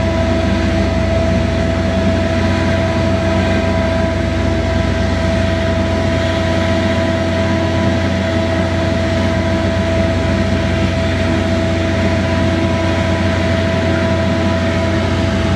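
Steady mechanical hum from a running machine, with a constant high whine over a low drone, unchanging throughout.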